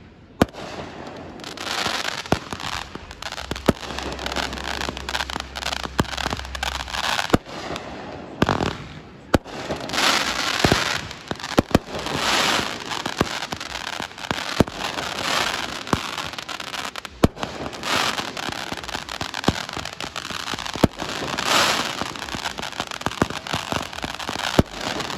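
Aerial fireworks firing one after another: many sharp bangs from shells launching and bursting, with continuous crackling between them that swells louder several times.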